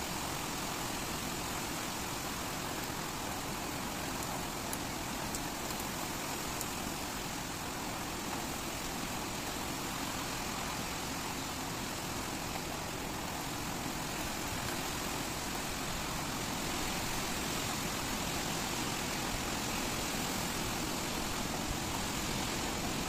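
Heavy rain pouring down on asphalt and a parked car's roof, a dense, steady hiss with no let-up.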